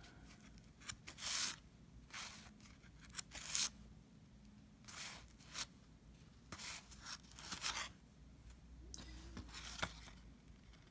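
1990 Fleer cardboard basketball cards being slid and flipped one by one in the hands. A run of short, dry scrapes and rustles comes about once a second.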